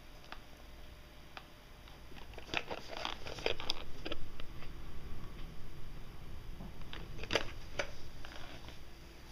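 Cardboard boxes and crumpled packing paper being handled: scattered rustles and light knocks, busiest about two to four seconds in and again around seven seconds.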